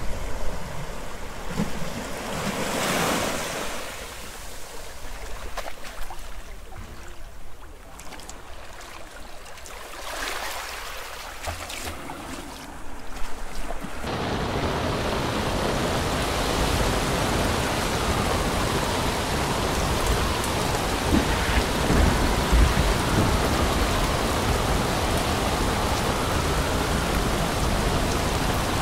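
Ocean waves and wind, with a few swells surging up and falling away. About halfway through, a steady heavy rain cuts in suddenly and keeps up as a dense hiss over the sea.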